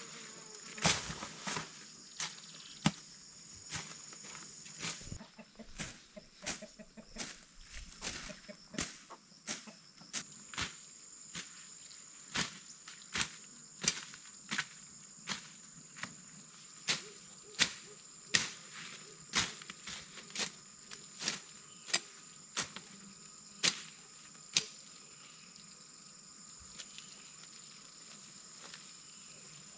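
A hand weeding blade chopping into soil and weeds in short, sharp strikes, roughly one a second, stopping a few seconds before the end. A steady high insect buzz runs behind them.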